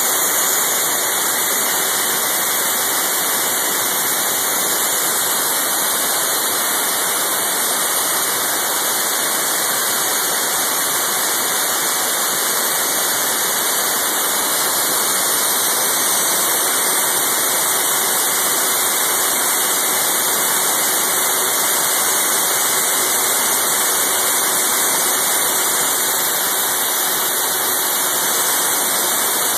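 Compressed air rushing through a small homemade metal turbine, a loud, even hiss that holds unchanged throughout.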